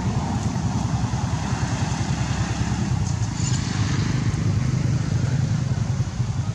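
A steady low rumble, loud and unbroken.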